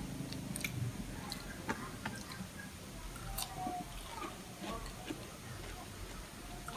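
A person chewing food with the mouth closed, close to the microphone: soft, scattered mouth clicks and smacks.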